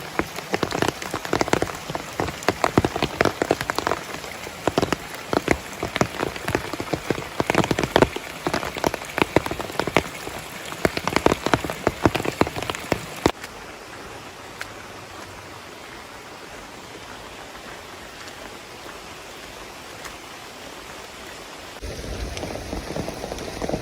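Rain falling in the village: heavy, irregular drops strike a hard surface over a steady hiss of rain for roughly the first half. The drop strikes then stop abruptly, leaving only the even hiss. Near the end a louder, deeper rush of noise comes in.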